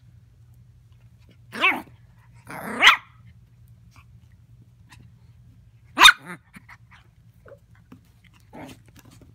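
Morkie puppy (Maltese–Yorkshire terrier cross) barking four times while playing, short excited barks with the third the loudest and the last faint.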